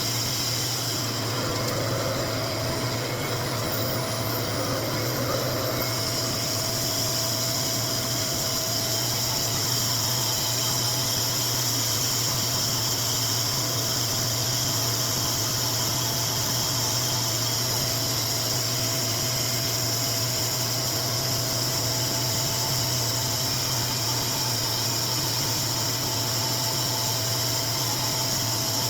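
RevAir suction hair dryer running continuously: a steady motor hum with airflow hiss, unchanging throughout.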